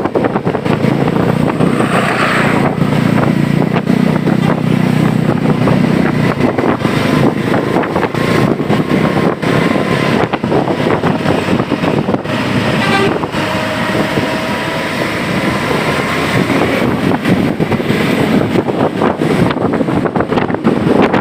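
ALS intercity bus driving in heavy rain: steady road, engine and rain noise, with the engine hum swelling for a few seconds near the start and a short higher tone about two seconds in.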